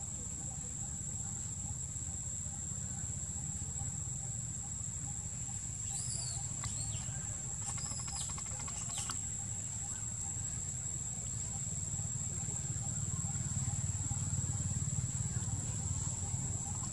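Insects droning with a steady, thin high-pitched note over a low rumble, with a few short high chirps about six to nine seconds in.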